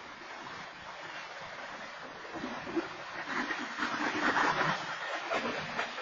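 Train cars rolling past over the rails: a steady rumble and clatter of wheels on track that swells louder from about halfway through, with scattered clanks, heard through a security camera's microphone.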